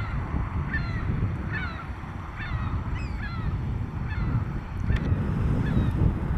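Seagulls calling: a run of short, falling cries, most of them in the first half, with a few more near the end, over a steady low rumble.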